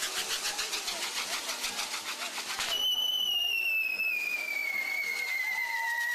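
Fireworks going off: a rapid run of crackling pops, about six a second, then, a little under three seconds in, a loud whistling firework starts, its pitch falling slowly as it burns.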